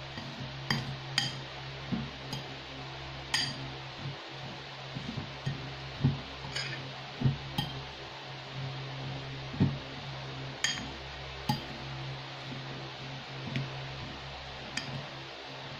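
A metal spoon stirring and mashing a tuna and crushed-cracker mixture in a ceramic bowl: irregular sharp clinks of metal on ceramic every second or two, with duller knocks in between.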